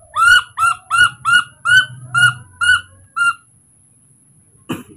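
A baby monkey calling: about nine short, high squeaks in quick succession over the first three seconds, each rising then dropping in pitch. A short click follows near the end.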